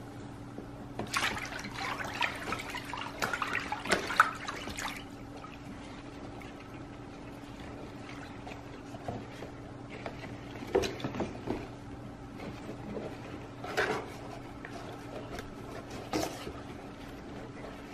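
Water splashing and sloshing in a plastic tub as an orchid's roots are dunked in to soak, busiest over the first few seconds with a few brief splashes later, over a low steady hum.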